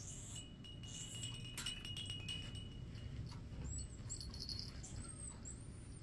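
Congo African grey parrot making soft clicks, then a few short, high, squeaky chirps in the second half. A faint steady high tone runs under the first half.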